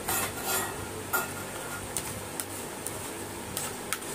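A spoon scraping thick ground coconut chutney off a tray into a plastic bowl: a short scraping rasp at the start, then a few light clicks and taps as the spoon knocks the tray and bowl.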